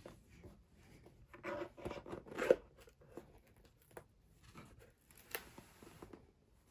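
Handling and opening a large cardboard gift box: the lid lifted and the crinkly wrapping inside rustled by hand, with a few light knocks and clicks. The loudest rustle comes about two and a half seconds in.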